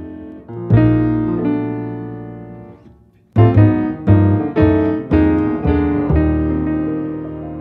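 Background piano music. A chord is struck about a second in and left to fade, then after a short pause a series of chords follows, struck about twice a second.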